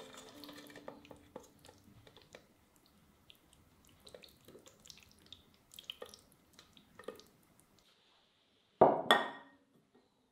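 Thick, saucy macaroni and cheese being scraped out of a stainless steel pot into a ceramic dish: light clicks and scrapes of utensil on the pot and soft wet plops. A short, loud knock near the end is the loudest sound.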